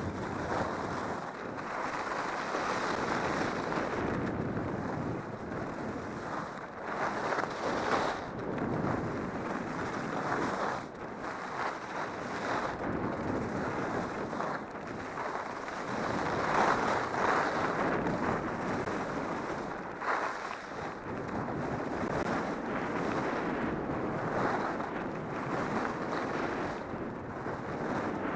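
Wind rushing over the microphone of a helmet camera on a downhill skier, mixed with skis scraping and carving on groomed snow. The rush swells and eases every few seconds as the skier turns.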